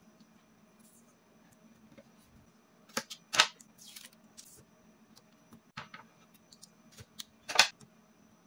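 Cardstock pieces handled on a wooden tabletop: a few short, crisp paper rustles and taps, the loudest about three and a half and seven and a half seconds in.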